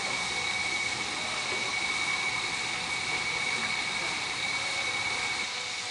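Steady rush of water from a rock waterfall pouring into a swimming pool, with a steady high-pitched whine over it.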